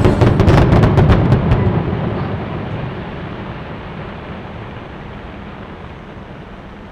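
Fireworks going off: a rapid volley of sharp cracks for the first second or so, then a low rumble that slowly fades away.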